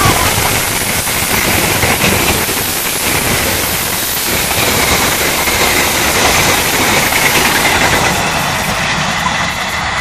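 Passenger train coaches passing at speed: a loud, steady rush and rumble of wheels on rail, easing slightly in the first few seconds as the train goes by.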